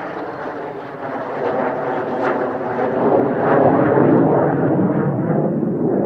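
Jet noise from a Mitsubishi F-2 fighter's single F110 turbofan as it flies past. It swells to its loudest about four seconds in, then fades as the jet moves away, the higher part of the sound dropping off.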